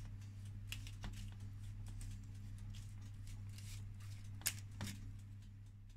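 Faint handling sounds of a silicone pastry brush dabbing beaten egg onto a puff pastry edge, with a few soft clicks and taps, over a steady low hum.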